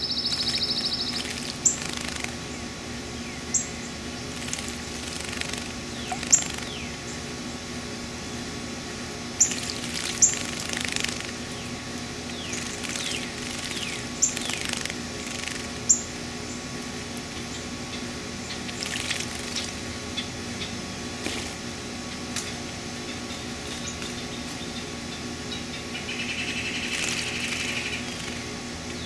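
Painted buntings bathing in a shallow birdbath: bursts of small splashes and wing-fluttering in the water, with several sharp, high bird chip notes in the first half.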